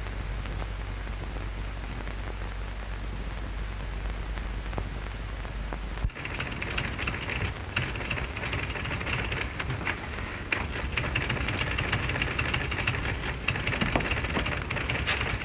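Soundtrack noise of an early sound film: steady hiss and crackle, with a low hum that cuts off suddenly about six seconds in. After that the crackle grows brighter, with scattered clicks.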